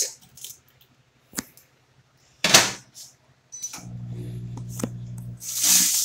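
GE microwave oven being loaded and started: clicks as the food goes in, a single knock as the door shuts, a short keypad beep, then the oven starting up with a steady electrical hum. The hum is louder for its first second and a half or so, and there is a brief burst of noise near the end.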